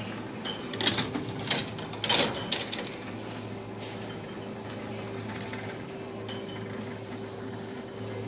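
Bottle-deposit reverse vending machine running with a steady hum, with a few sharp glass clinks and knocks from about one to two and a half seconds in as the last glass beer bottles are handled.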